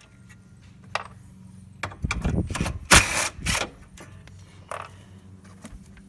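A DeWalt cordless power tool turning a socket on an extension, run in short bursts to back off the nuts holding the hood latch, with sharp metal clicks between. A faint steady low hum sits underneath.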